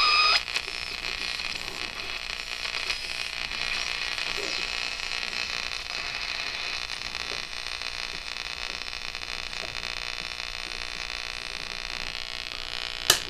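Static hiss from a 1965 Magnavox solid-state clock radio as its tuning dial is swept, with no station coming in; a whistling tone cuts off right at the start and there is a sharp click near the end. The owner thinks interference from the CFL bulbs overhead could be causing the poor reception.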